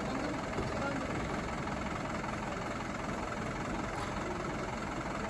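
Fire engine's engine idling steadily.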